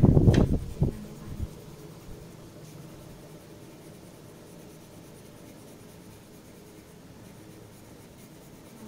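Coloured pencil scratching faintly on paper as it shades. A loud low rumble at the start dies away about a second in.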